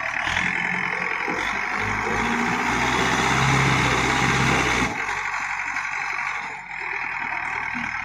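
Old JCB backhoe loader's diesel engine running under load. It grows louder from about two seconds in, then drops back abruptly about five seconds in.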